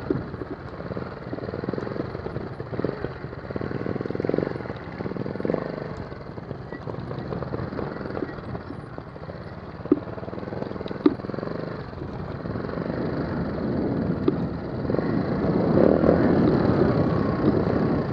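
Trials motorcycle engine running as the bike is ridden along a leaf-covered woodland trail, with two sharp knocks about ten and eleven seconds in. It grows louder over the last few seconds.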